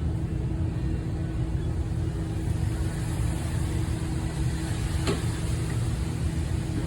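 Car on the move: a steady low road rumble with a faint steady hum, and a brief click about five seconds in.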